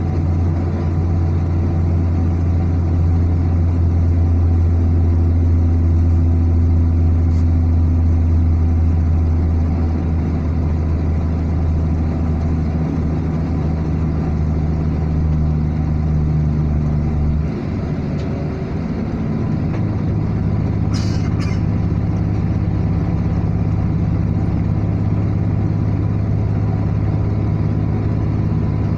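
A car driving along a highway: a steady low drone of engine and road noise. About two-thirds of the way through it dips briefly and settles at a different pitch. A short high click comes a few seconds later.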